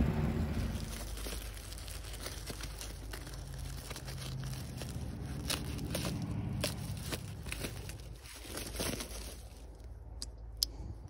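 A woven plastic grass-seed bag being cut open with a knife and pulled open by hand: irregular crinkling and tearing of the plastic weave. Wind rumbles on the microphone in the first second.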